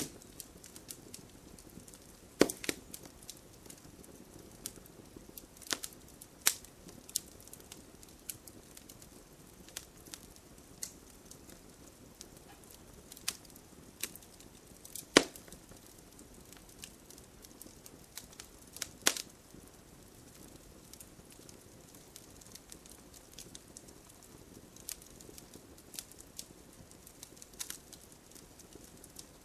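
Wood campfire crackling: a soft steady hiss with scattered sharp pops and snaps at irregular moments. A few louder pops stand out, the loudest about 15 seconds in.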